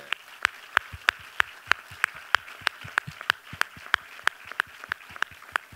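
Audience applauding, with one nearby pair of hands clapping loudly and evenly about three times a second over the steady clapping of the crowd.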